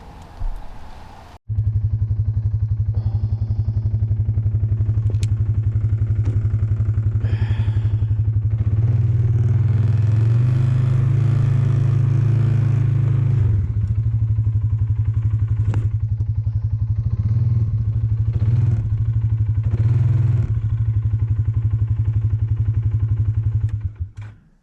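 Four-wheeler (ATV) engine running as it is ridden, starting abruptly about a second and a half in. Its pitch rises for a few seconds near the middle and drops back, with a few light clatters over the top.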